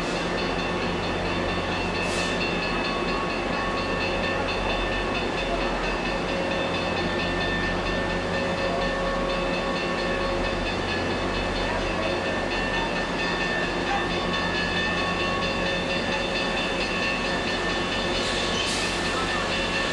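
Locomotives running at a station platform: a steady mechanical hum with several steady tones underneath. Short hisses come about two seconds in and twice near the end.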